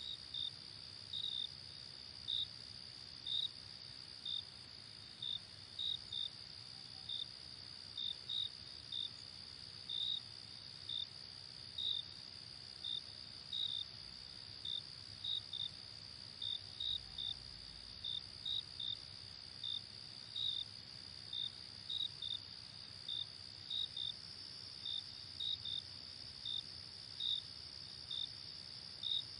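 Crickets chirping: a steady high trill from many insects, with one nearer cricket's short, louder chirps over it, irregularly spaced at about one or two a second.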